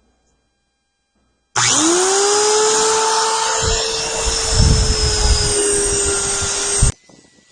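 Electric grinder spinning up with a rising whine, then running at a steady pitch while grinding and polishing an alloy wheel rim, with a rougher low grinding noise midway. It cuts off suddenly near the end.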